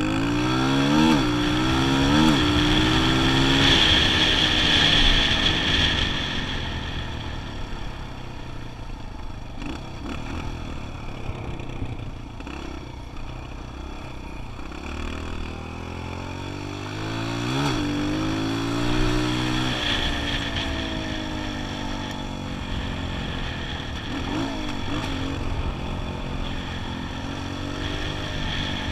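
Kawasaki KLX125's single-cylinder four-stroke engine accelerating through the gears, its pitch climbing and dropping back with each upshift. It runs up hardest near the start and again a little past halfway, cruising more evenly and quietly in between.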